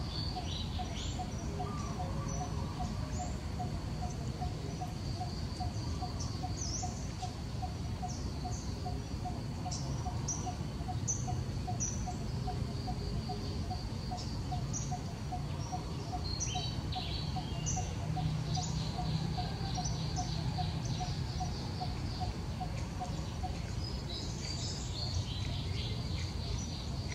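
Birds chirping with short rising calls, with a cluster of chirps near the end. Under them run a steady high-pitched drone, a low note repeated about three times a second that stops shortly before the end, and a constant low rumble.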